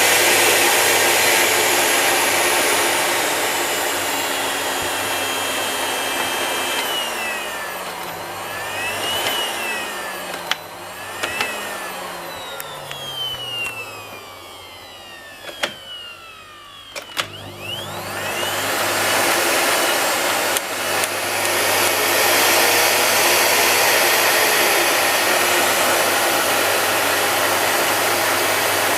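Miele Cat & Dog S4562 canister vacuum cleaner running at full power, then slowing, its whine falling and rising in pitch several times with a few clicks as the speed drops. About two-thirds of the way through the motor spins back up and runs at full power again.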